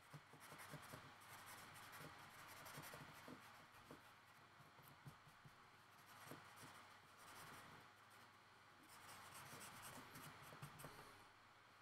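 Faint scratchy strokes of a felt-tip marker on sketchbook paper, in short irregular runs with brief pauses.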